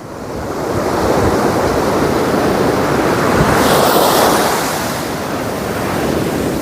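Waves washing in on the shore, a steady rushing surf that swells about three and a half seconds in and then eases.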